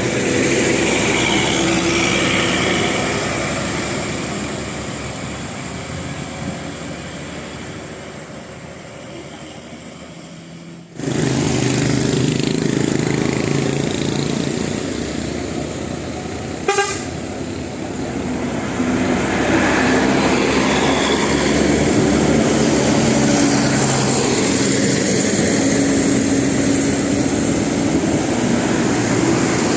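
Bus basuri musical horns sounding held tones that shift in pitch, over the noise of bus engines climbing a steep hill. The sound fades, breaks off sharply about eleven seconds in, then comes back loud.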